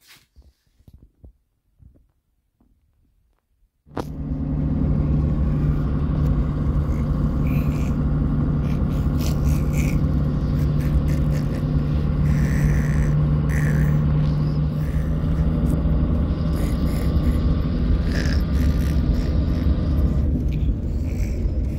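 Bus running, heard from inside the passenger cabin: a steady engine drone with a low hum and road rumble. It starts suddenly about four seconds in, after a few faint handling clicks.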